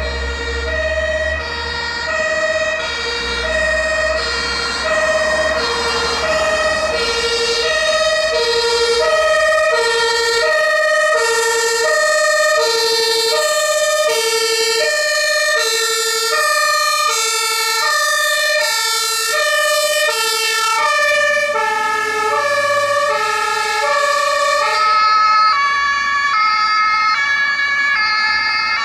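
Two-tone sirens (German Martinhorn) of fire engines on an emergency run, alternating high and low. From about a third of the way in, a second siren at a different pitch overlaps the first. A heavy vehicle's engine rumbles underneath as it passes at the start.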